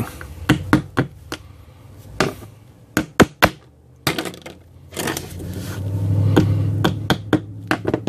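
Metal pliers and a crimping tool knocking and clicking against plastic Anderson Powerpole connector housings as they are forced to lock together. The sound is a series of sharp, irregular taps, the loudest clustered about three seconds in. The housings are unusually tight to join.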